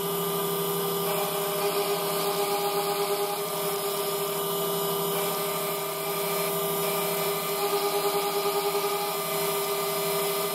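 Mill-drill spindle running a 5 mm carbide end mill as it sweeps back and forth through a steel cam-lobe blank, a steady machine whine over cutting noise, with two stretches of faster fluttering where the cutter bites harder.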